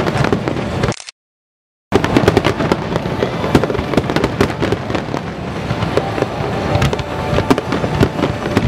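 Aerial fireworks shells bursting in a dense barrage: many sharp bangs and crackles overlapping. The sound cuts out completely for just under a second near the start.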